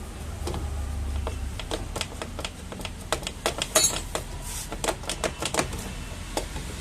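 Irregular sharp metallic clicks and taps of hand tools and bolts while a scooter's clutch cover is unbolted and worked off, several a second and thickest in the middle.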